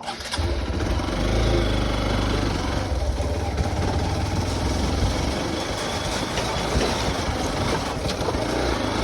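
Hero XPulse 200 4V Pro motorcycle's single-cylinder engine running steadily.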